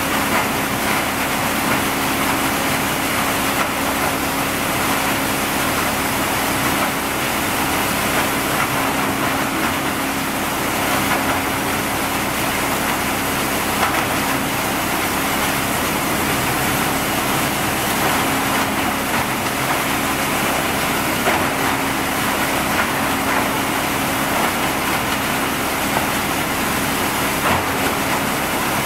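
Wood sawdust crusher running with a steady hum and a dense grinding noise as wood scraps are fed in and broken up, with a few sharp knocks along the way.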